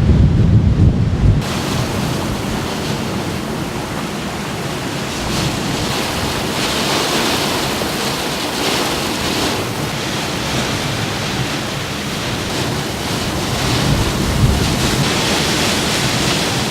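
Typhoon storm noise: a loud, steady rush of wind and water. Wind buffets the microphone with a heavy rumble for about the first second and a half, then the sound changes abruptly to a hissing rush that swells and eases.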